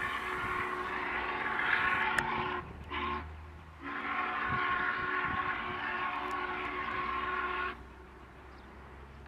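Steam locomotive N&W 611's whistle blowing a long blast, a short one and another long one, each a steady chord of several tones, over a low rumble. The pattern fits the end of the long-long-short-long grade-crossing signal.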